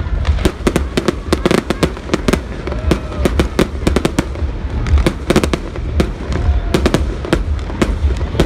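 Fireworks display: rapid bangs and crackles, several a second, over a low rumble.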